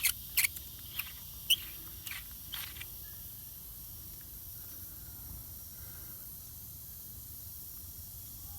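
About six sharp clicks from a rifle scope's adjustment turret being turned in the first three seconds, then a faint steady background hum.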